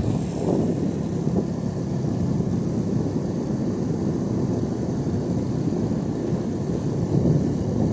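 Steady low running noise of a moving road vehicle, heard from on board, with wind on the microphone.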